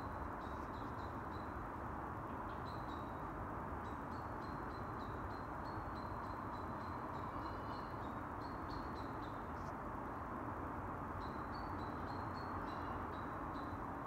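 Small songbirds in the trees chirping in quick runs of short, high notes, pausing now and then, over a steady background hiss.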